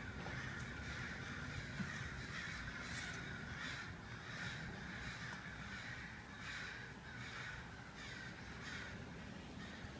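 A flock of crows cawing, faint and repeated, roughly one or two caws a second.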